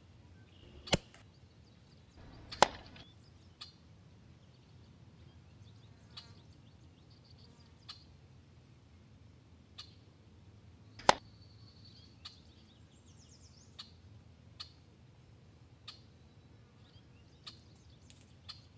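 Air rifle shots: three sharp cracks, about a second in, about two and a half seconds in (the loudest) and about eleven seconds in, with fainter clicks between.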